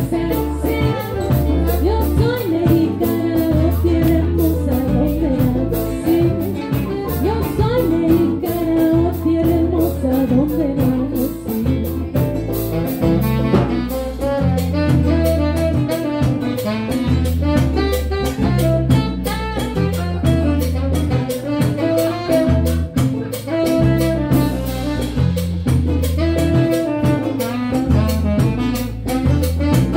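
Live band playing an instrumental section, with a saxophone carrying the melody over a bass line and a drum kit keeping a steady cymbal beat.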